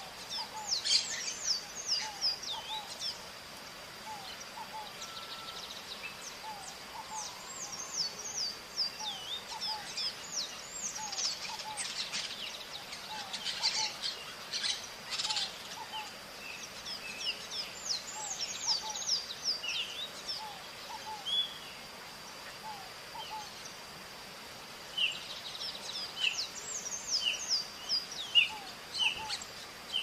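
Maritacas (small Brazilian parrots) calling outdoors, giving clusters of short, high, falling calls with quieter gaps between. Under them run a steady high whine and a softer, lower call that repeats throughout.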